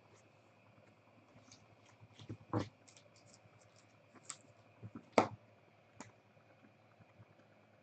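Faint, scattered light clicks and taps of trading cards and plastic card holders being handled, with two louder clicks about two and a half and five seconds in.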